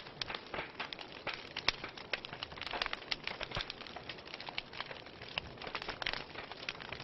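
Wood fire crackling in a fireplace: irregular sharp pops and snaps over a soft steady hiss of burning logs, with one louder pop a little under two seconds in.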